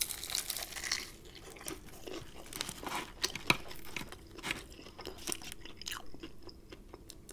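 Crispy Popeyes fried chicken being bitten and chewed close to the microphone: many small, sharp crunches of the fried breading, with wet chewing between them.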